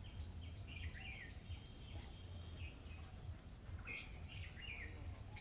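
Birds chirping: series of short, quick downward-sweeping chirps in the first second and a half and again around four seconds in, over a steady low hum and a faint high whine.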